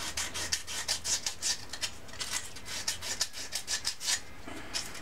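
80-grit sandpaper rubbed by hand back and forth inside the crank end of a steel outboard connecting rod, in quick rasping strokes several times a second that thin out near the end. It is cleaning up the rod's needle-bearing surface, worked in the direction the bearings travel.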